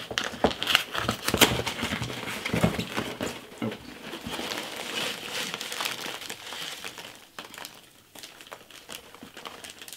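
Cardboard mailing envelope being torn open along its tear strip and the paper packet inside pulled out: a run of tearing, crinkling and rustling with sharp crackles. It is busiest in the first few seconds and thins out near the end.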